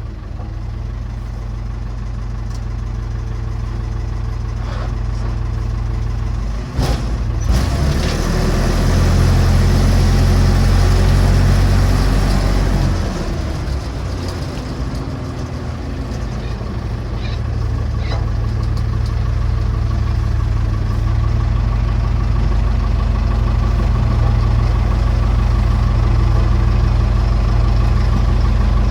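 Massey Ferguson BX 50 backhoe's engine running under load as the machine drives, swelling and easing in loudness. There is a sharp knock about seven seconds in.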